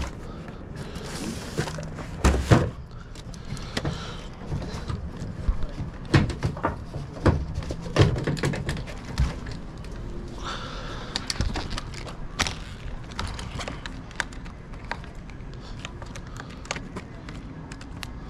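Handling noises from restocking a vending machine: irregular knocks, clicks and thuds as products and packs are moved. A heavier thud comes about two and a half seconds in, and there are stretches of rustling packaging around one second and again about ten seconds in.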